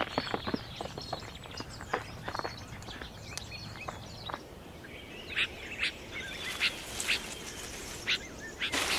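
Small birds chirping over an open natural ambience, with sharp clicks and taps of ibex hooves on rock during the first few seconds and a rustle of foliage near the end.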